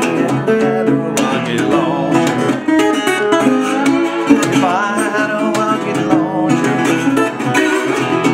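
Acoustic guitar played with a pick, a steady rhythmic accompaniment with a wavering higher melody line over it, in the instrumental break between sung lines.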